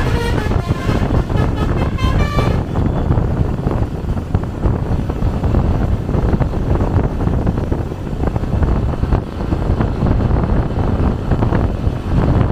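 Basuri 'telolet' multi-trumpet bus horn playing a quick tune of short stepped notes, cutting off about two and a half seconds in. A heavy, steady low rumble of road and wind noise from travelling traffic follows.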